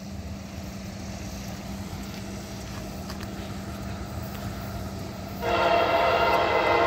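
Approaching freight locomotive's air horn sounding one long, steady blast that starts suddenly about five and a half seconds in; before it, only a faint steady hum.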